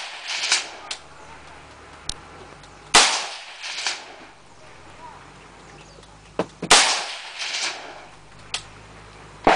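Colt M4 carbine firing 5.56 mm single shots from prone, slowly and deliberately: three sharp rifle cracks about three and a half seconds apart, the last right at the end. Each crack is followed under a second later by a fainter second report.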